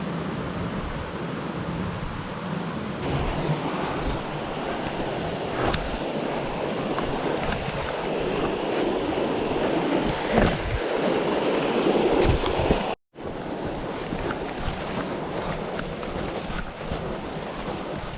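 A steady rushing noise that drops out abruptly for a split second about thirteen seconds in.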